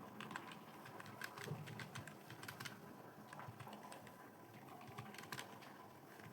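Computer keyboard being typed on fast and irregularly, a steady stream of key clicks with a brief lull about halfway through, as during a timed Hindi typing test.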